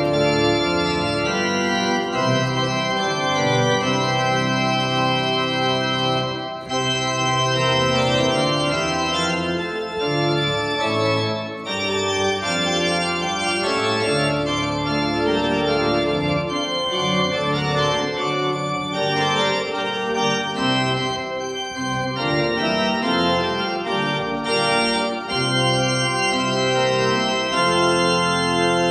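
Church organ played from a two-manual console: sustained full chords with short breaks between phrases about six and eleven seconds in.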